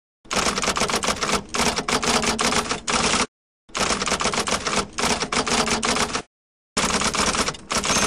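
Typewriter keys clattering in rapid strikes, in three runs with short silent pauses between them: a typewriter sound effect matching text being typed out on screen.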